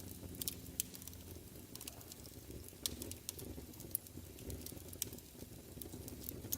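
Crackling wood fire, faint: scattered sharp pops and snaps over a low rumble.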